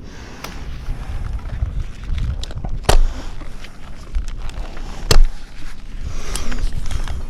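Rumbling buffeting on the microphone, with two sharp knocks about three and five seconds in.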